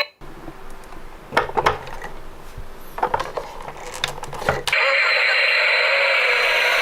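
Toy cars being handled: a few sharp plastic clicks and knocks over a low rumble. About three-quarters of the way in, a loud steady engine-like sound effect starts up.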